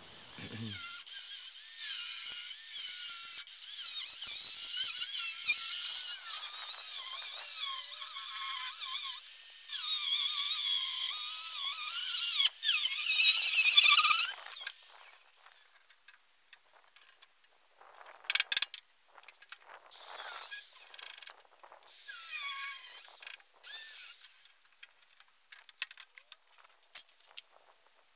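Angle grinder with a cutting disc cutting through a tractor's sheet-metal cab panel. A continuous screech with a wavering pitch runs for about fourteen seconds, then it goes on as a series of short cuts.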